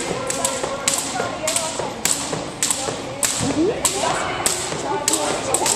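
Double dutch jump ropes slapping a wooden gym floor in a steady rhythm, about two sharp slaps a second.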